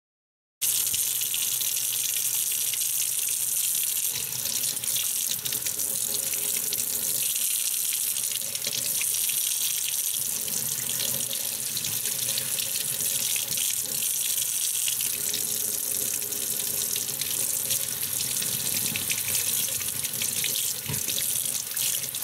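Tap water running steadily into a stainless steel sink and splashing over hands and small squid being rinsed and cleaned under the stream. It starts abruptly about half a second in.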